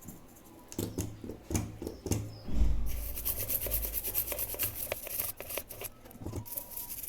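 A circuit board being scrubbed clean with alcohol: fast, scratchy rubbing strokes, after a few handling knocks and a low thump just before the scrubbing starts.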